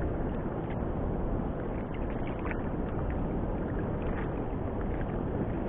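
Steady wind rush on the microphone with sea water washing against a small wooden fishing boat's hull, and a few faint clicks.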